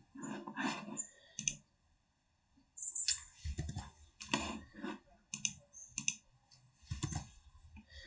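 Typing on a computer keyboard: irregular key clicks, a pause of about a second, then a longer run of typing.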